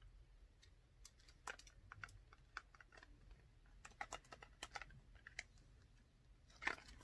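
Faint, irregular light clicks and taps of small objects being handled, with a slightly louder cluster of clicks near the end as a pair of eyeglasses is unfolded and put on.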